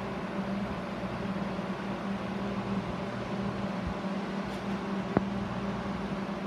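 Steady hum of aquarium pump and filter equipment, with a constant low tone, and a single sharp click about five seconds in.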